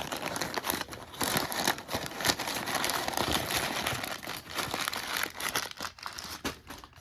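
Packaging being crumpled and rustled, with some tearing, as the next tool is dug out of a shipping box and unwrapped: a dense, continuous crinkling crackle.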